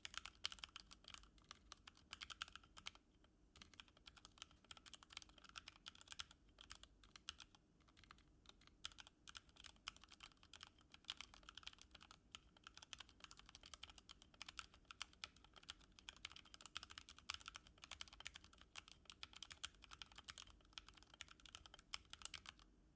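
Typing on a Logitech G Pro X mechanical keyboard with clicky Kailh Blue switches: a quick, uneven run of sharp key clicks with a few short pauses, stopping just before the end.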